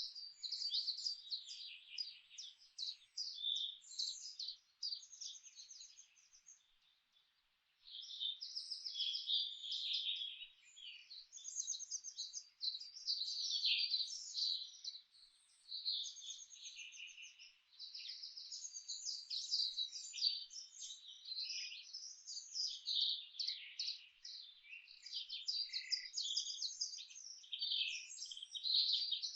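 Several songbirds singing at once in a forest chorus: quick, high chirps and trills overlapping almost continuously, with a brief lull about a quarter of the way in.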